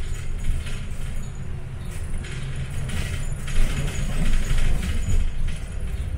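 City bus heard from inside the cabin as it gathers speed: a low engine drone under road noise, with loose fittings rattling on and off.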